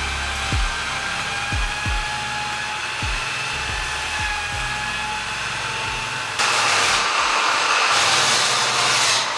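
A power tool runs with a steady whine under background music with deep electronic bass thumps. About six and a half seconds in, a louder hissing, grinding noise comes in.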